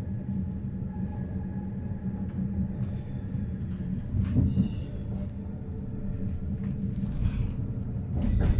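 SBB passenger train running, heard from inside the carriage: a steady low rumble of the wheels on the rails with a faint hum. It grows briefly louder about four and a half seconds in and again near the end.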